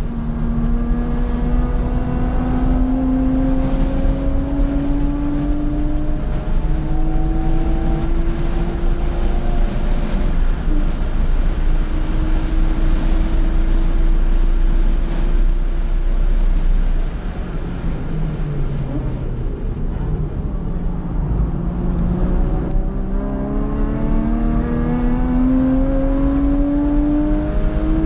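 Porsche 911 Carrera 2 (997) flat-six engine at full throttle, heard from inside the cabin: it climbs in pitch, steps down at an upshift about six seconds in, then holds high. Around seventeen seconds in it drops in level and pitch as the car slows, and from about twenty-two seconds it climbs in pitch again under hard acceleration.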